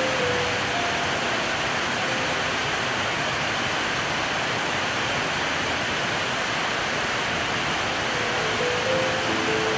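Steady rain falling on corrugated roofing and streaming off the roof edges, an even rushing hiss.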